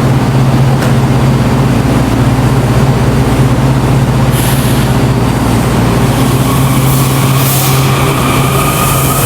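WMATA Metrorail train pulling away after the doors close: a steady low hum, then, from about six seconds in, a whine that rises slowly in pitch as the traction motors bring the train up to speed.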